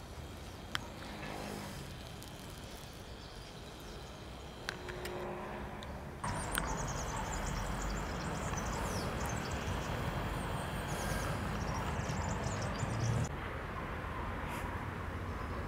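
Outdoor ambience: a steady low rumble with a few scattered clicks, rising suddenly about six seconds in, with small birds chirping high and repeatedly for several seconds after that.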